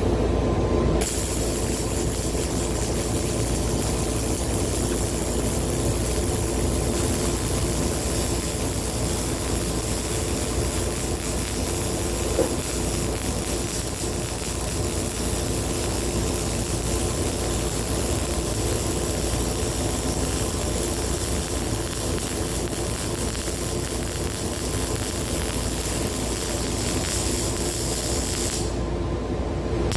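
A steady mechanical hum with a hiss over it; the hiss comes in about a second in and cuts off suddenly shortly before the end, with one brief click near the middle.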